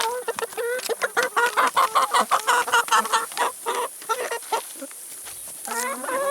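Several chickens clucking in quick short calls while pecking at food, busiest in the first few seconds and thinning out, with a rising squawk near the end.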